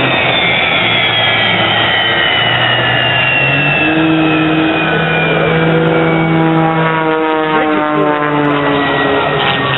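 F-86 Sabre's turbojet winding down after shutdown on the ramp: a loud whine falling slowly and steadily in pitch over the engine's rushing noise.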